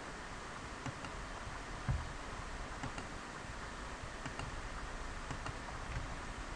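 Faint scattered clicks of a computer mouse and keyboard as vertices are selected, with a dull low thump about two seconds in.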